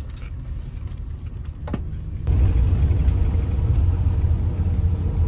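Low rumble of a vehicle heard from inside its cabin, with a single sharp click a little under two seconds in. About two seconds in, the rumble jumps abruptly to a louder, denser level carrying a steady hum.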